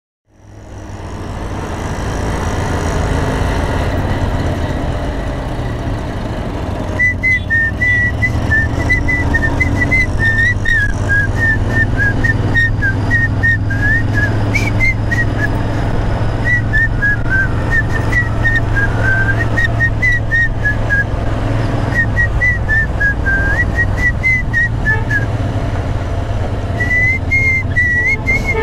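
Background music: a low steady drone fading in, then from about seven seconds in a whistled melody over a ticking beat.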